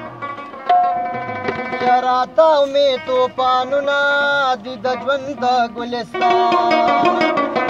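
Live Pashto folk music: a rubab plucked in quick runs of notes over drum strokes, with a voice singing a long, wavering phrase from about two seconds in until about six seconds in, after which the instruments carry on alone.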